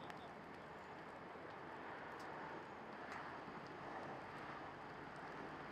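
Semi-truck fire burning, with scattered faint crackles and pops over a steady rushing noise.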